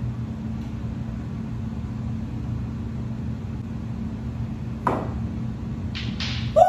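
Steady low hum of room noise, broken about five seconds in by a single sharp click of a pool shot, cue and ball striking on a small folding pool table, followed by a short rush of noise.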